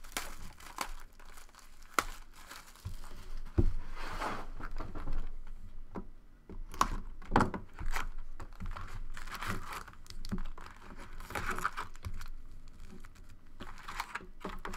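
Plastic shrink wrap being torn off a cardboard trading-card box and crinkled, then foil card packs rustling and clicking as they are pulled out of the box and stacked, in irregular bursts.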